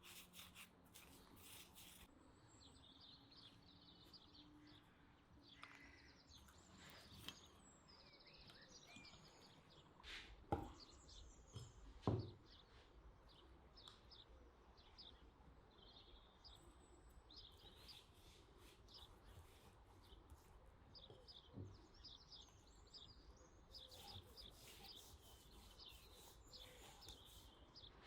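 Faint bird chirps and calls that come and go throughout, with two sharp knocks about ten and twelve seconds in.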